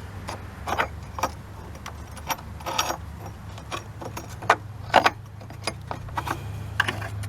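Irregular metallic clicks and clinks of a wrench and the battery hold-down bolt and bracket being worked loose, over a steady low hum.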